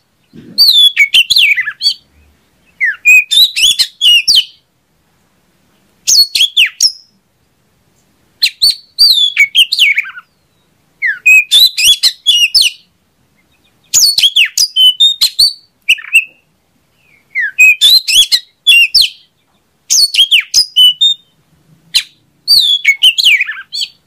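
Oriental magpie-robin (kacer) singing: about nine loud phrases of quick rising and falling notes, each a second or two long, with short silent gaps between.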